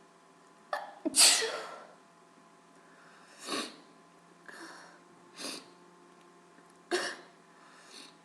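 A woman's wet sneezing fit from an allergy: several sneezes a second or two apart, the loudest about a second in.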